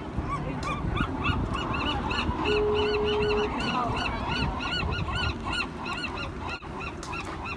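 A flock of birds calling nonstop, many short rising-and-falling calls overlapping several times a second, over a low rumble. A brief steady tone sounds for about a second near the middle.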